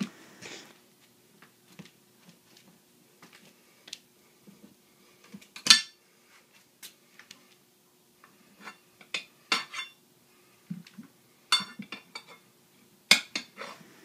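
Metal tire irons clinking against a motorcycle wheel rim as a new tire is levered on over the rim: scattered sharp metallic clinks and taps, the loudest about six seconds in and several more near the end.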